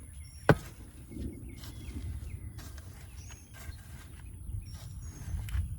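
Shovel digging through loose soil in a raised garden bed, with one sharp, loud knock about half a second in and a few fainter knocks after it.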